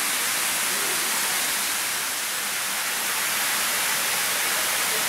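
A steady, even hiss, strongest in the high range, unchanging throughout.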